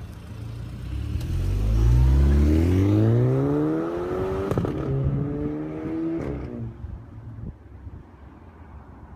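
VW Jetta 1.4 TSI's turbocharged four-cylinder, with a Jetex exhaust, accelerating hard, its pitch climbing steadily. About four and a half seconds in, a sharp pop from the exhaust comes as the DSG gearbox upshifts: the 'DSG fart'. The engine runs on briefly and then fades out.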